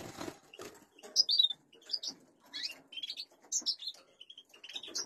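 Small cage songbirds chirping: repeated short, high chirps scattered irregularly, with a brief rustle at the start.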